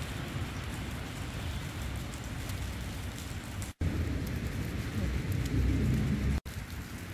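Outdoor wind rumble buffeting the microphone under a steady hiss during heavy snowfall. The sound cuts out for an instant twice, a little before four seconds in and again near the end.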